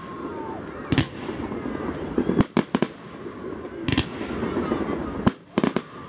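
Aerial firework shells bursting overhead: about half a dozen sharp bangs, a second or so apart, some in quick pairs.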